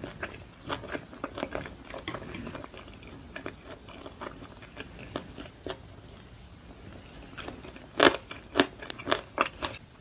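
Close-up chewing and crunching of crisp, pan-fried Korean pancakes (chive pancake and potato pancake), with a run of louder crunches near the end.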